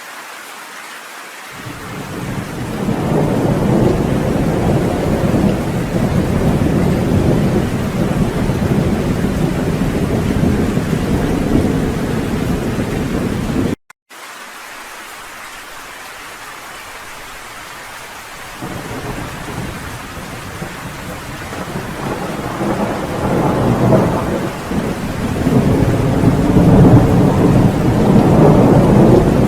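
Steady rain with rolling thunder: a long low rumble builds about a second and a half in and cuts off abruptly near the middle, then after a few seconds of rain alone a second rumble rises and grows loudest near the end.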